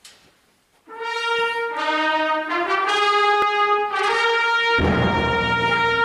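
Concert wind band starting a piece: about a second in, the brass enter with sustained fanfare notes and chords that step in pitch, and near the end the full band comes in much louder with a heavy low percussion roll.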